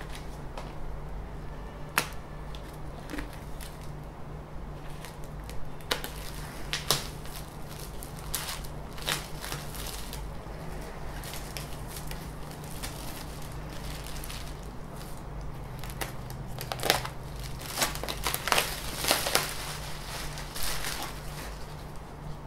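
Clear plastic packaging crinkling and crackling as it is handled and pulled around the printer, in irregular bursts of crackles and clicks that come thickest near the end, over a low steady hum.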